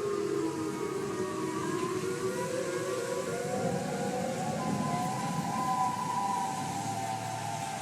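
Outdoor tornado warning sirens wailing, several tones sounding at once. About three seconds in the pitch climbs, then holds high.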